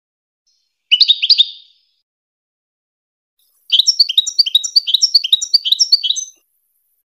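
European goldfinch singing: a short, high phrase of quick twittering notes about a second in, then a longer phrase of rapid repeated notes lasting about two and a half seconds.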